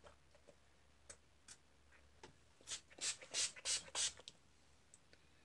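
Pump-mist bottle of Wet n Wild Photo Focus setting spray being sprayed five times in quick succession, about three hissy spritzes a second, after a couple of faint clicks.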